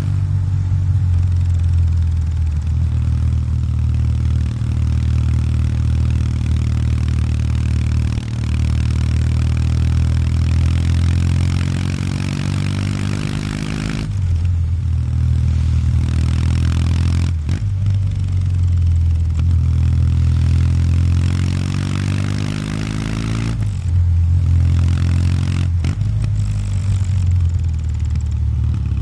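Kawasaki W800 Street's air-cooled parallel-twin engine through its stock exhaust, pulling under way with its pitch rising and falling as the throttle and gears change. The sound breaks off abruptly several times at edits.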